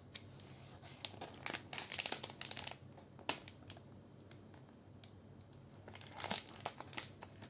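Plastic snack pouch crinkling as it is torn open and pulled apart by hand, in crackly bunches about one and a half seconds in and again near the end.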